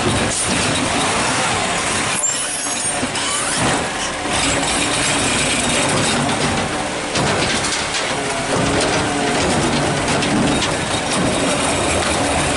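Peterbilt 520 garbage truck's diesel engine running under hydraulic load as the McNeilus ZR automated side arm grabs a wheeled trash cart, lifts and tips it into the hopper, and sets it back down. A few knocks of the cart and arm sound over the steady engine noise.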